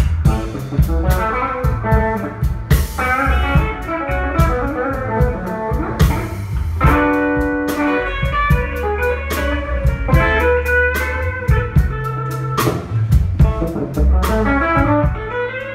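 Live blues band playing: electric guitar carrying a melodic line over electric bass and a drum kit, with regular drum and cymbal hits.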